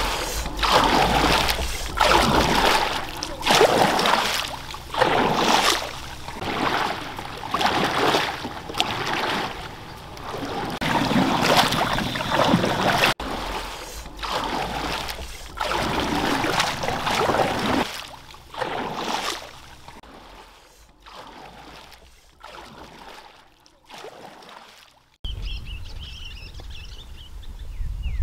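Canoe paddle strokes in the water, a splashing swish about once a second, growing fainter near the end. After an abrupt change, a low steady rumble with a few faint high chirps.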